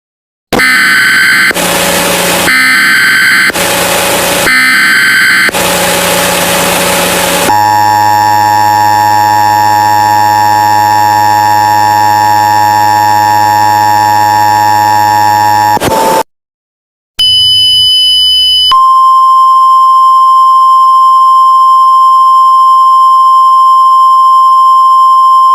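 Emergency Alert System tones: about seven seconds of harsh, buzzing SAME data header bursts, then the steady two-tone EAS attention signal held for about eight seconds. After a brief gap and a short beep comes a steady single-pitch 1050 Hz warning tone.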